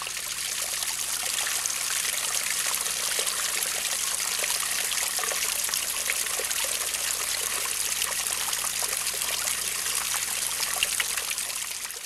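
Water trickling and running steadily over rocks in a small stream, an even splashing hiss.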